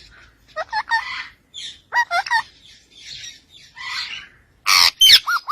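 A parrot calling: short squawks and whistled chirps that slide up and down in pitch, with a loud harsh screech about four and a half seconds in, followed by a quick run of repeated chirps.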